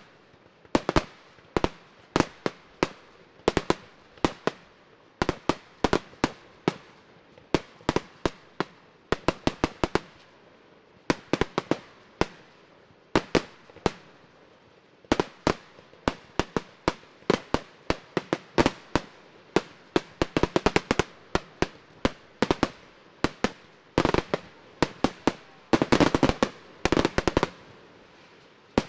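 Fireworks going off in a rapid series of sharp bangs, several a second, coming in clusters with short gaps and densest near the end.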